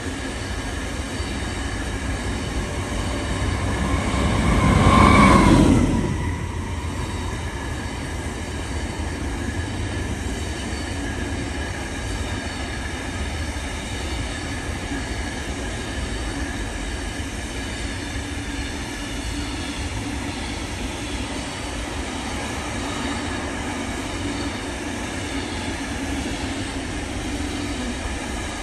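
Train passing on the line: the sound swells to a peak about five seconds in and falls away. It then settles into a steady rolling rumble with faint whining tones that runs on.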